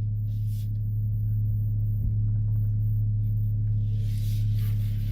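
A 2020 Dodge Charger's 3.6 Pentastar V6 with an add-on exhaust, running with a steady low drone that holds one pitch.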